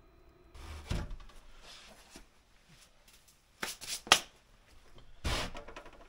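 A diesel heater runs with a faint steady hum that cuts off about half a second in. Then come rubbing and rustling handling noises, with a few sharp clicks and knocks near the middle and a louder rustle near the end.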